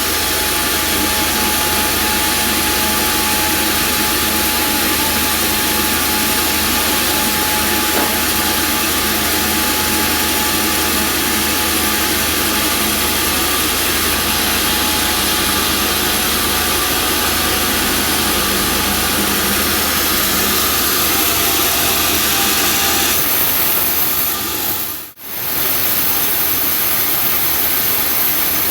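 Homemade bandsaw sawmill running with a loud, steady mechanical noise. About 25 seconds in, the sound drops out for a moment and comes back with more hiss in the upper range.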